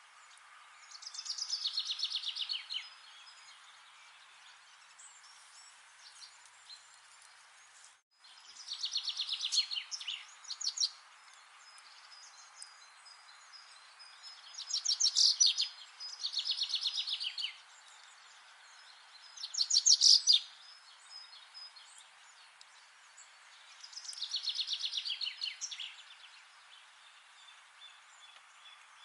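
A songbird singing the same phrase over and over, about six times: each phrase is a quick trill of notes falling in pitch, lasting a second or two, with a few seconds' pause between phrases. Underneath runs a faint steady hiss of background noise.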